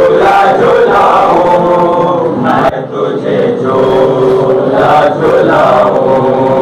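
A group of men chanting a noha, a Shia mourning lament, in a continuous melodic chant.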